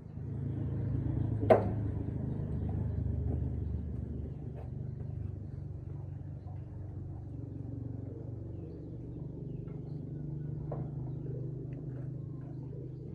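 Steady low machine drone with a single sharp metallic clank about a second and a half in, and a few light knocks later.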